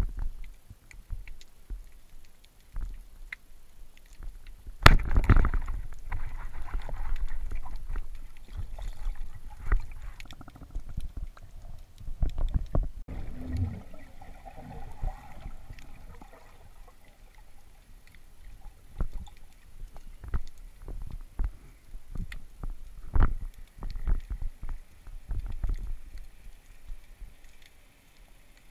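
Underwater sound heard through a camera housing on a dive: scattered clicks and crackles with shifting water noise. About five seconds in there is a sudden loud knock, followed by a few seconds of louder rushing water.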